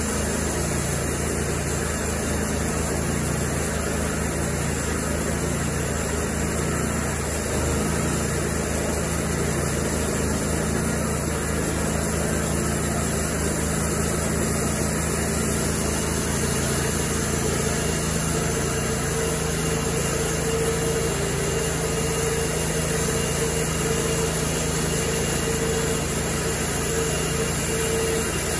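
Cook's MP-32 portable band sawmill running steadily, its engine driving the band blade through a log; a steady higher hum joins about two-thirds of the way through.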